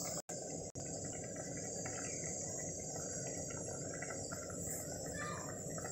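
Crickets trilling steadily in the background, with a low even hum and faint irregular pops. The sound cuts out briefly twice near the start.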